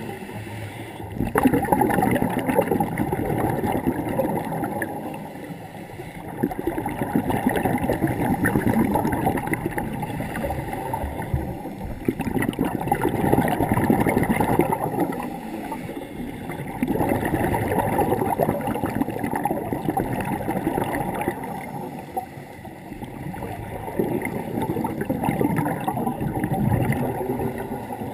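Scuba divers' exhaled air bubbling out of a regulator underwater: a rumbling gurgle that swells for a few seconds and fades, again about every five to six seconds with each breath out.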